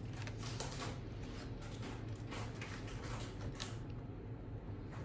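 Mentos candies dropped a few at a time into the neck of a plastic Coke bottle through a foil chute: scattered faint clicks and taps.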